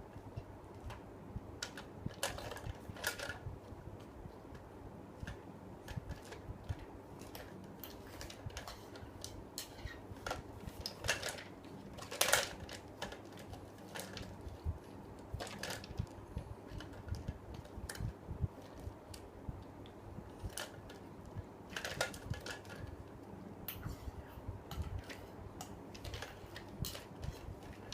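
Irregular light clicks and taps, with a few louder knocks (the loudest about twelve seconds in), over a steady low hum.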